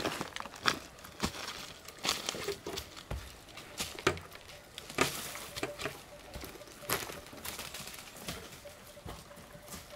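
Footsteps crunching through leaf litter on the forest floor, uneven steps about one a second.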